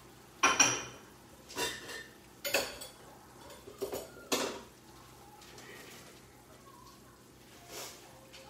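Dishes and utensils clinking and clattering, a series of sharp knocks with a brief ring over the first five seconds, and one more near the end.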